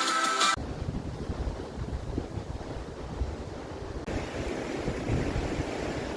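Background music cuts off about half a second in, then wind buffets the microphone with an uneven low rumble.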